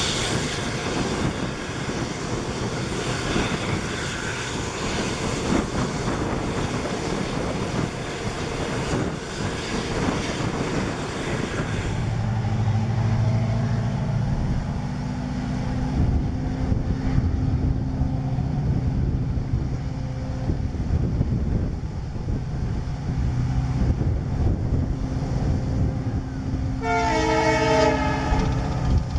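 Running noise of a moving passenger train heard from a coach, a dense rattle with wheel clatter. About twelve seconds in it gives way to an approaching EMD WDP4 diesel locomotive, its 16-cylinder two-stroke engine making a steady low drone, which sounds its multi-tone horn for about a second and a half near the end.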